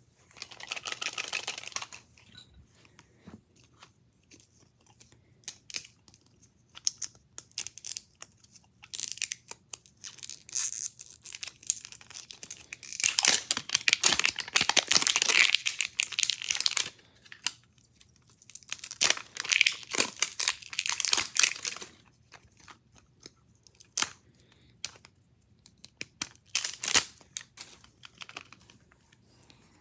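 Wrapper being peeled and torn off a Mini Brands capsule ball, in several crinkling, tearing bursts with scattered clicks and rustles between; the longest and loudest burst comes about halfway through, another a few seconds later.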